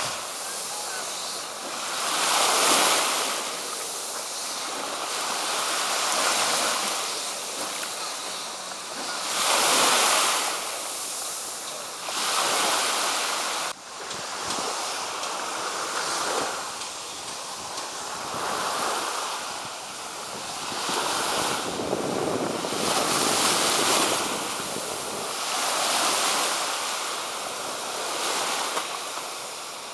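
Sea waves washing onto a sandy beach, swelling and fading every few seconds, with wind on the microphone. The sound breaks off abruptly about 14 seconds in and resumes.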